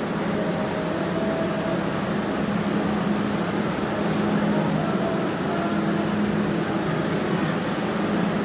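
Steady low mechanical drone from a passenger train standing at the platform, with no changes or knocks.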